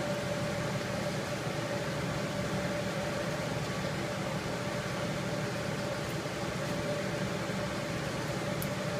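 Steady machine hum with one constant mid-pitched tone running through it, and a faint tick near the end.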